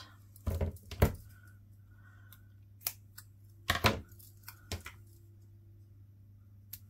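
A few sharp clicks and taps of craft tools and paper being handled on a table, the loudest about a second in and again near four seconds, over a steady low hum.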